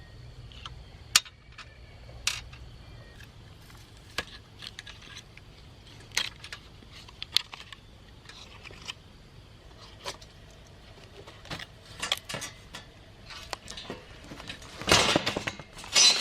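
Scattered sharp clicks and taps of plastic and metal parts being handled while an old LCD monitor is taken apart, with a longer burst of rattling clatter near the end.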